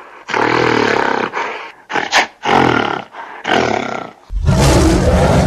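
Gorilla calls: a run of about five loud calls, the last one longer and deeper.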